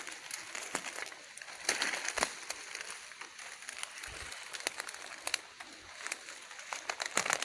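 Dry leaf litter and twigs crackling and rustling with scattered sharp clicks, over a steady high hiss.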